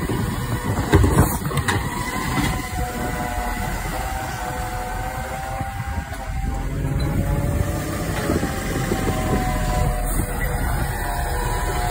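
Iveco Stralis side-loader garbage truck running, its engine rumbling with a steady whine from the hydraulics of the lifting arm. There are a couple of clunks about a second in as the arm handles a wheelie bin.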